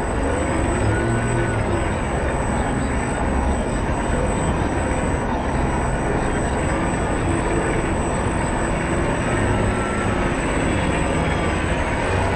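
Motor and propellers of a 1:40-scale RC model catamaran ferry running steadily, heard through a camera mounted on the model: an even drone with a thin, constant high whine.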